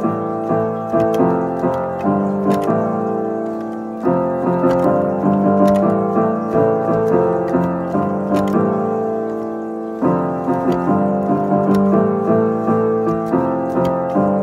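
Electronic keyboard on a piano voice, played by hand: a repeating phrase of single notes over held chords, starting over about every six seconds.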